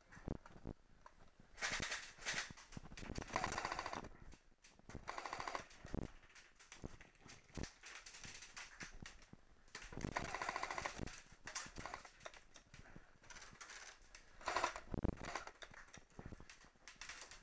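Airsoft electric gun firing several short full-auto bursts, each a rapid even rattle of shots, with quieter gaps between them.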